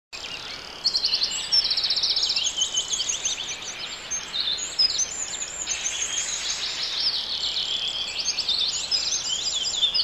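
Several birds chirping and trilling together, a dense chorus of high, quick notes that gets louder about a second in.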